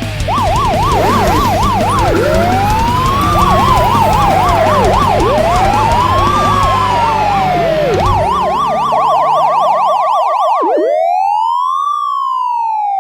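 Police car siren alternating between a slow rising-and-falling wail and a fast yelp, about four sweeps a second. A low steady background under it fades out about eight seconds in, leaving the siren alone.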